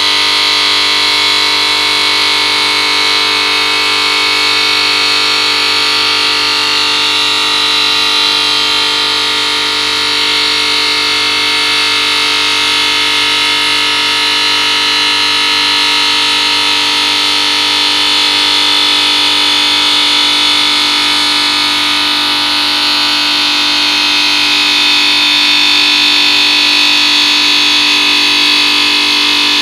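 OSC-Titan CNC 5-axis bridge saw's blade, tilted for a bevel, cutting through a stone slab: a loud, steady grinding whine with several held high tones.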